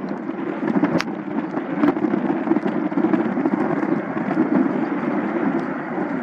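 Airbus A350-900's Rolls-Royce Trent XWB jet engines rumbling steadily as the airliner slows after landing. Two sharp clicks come about a second in and again near two seconds.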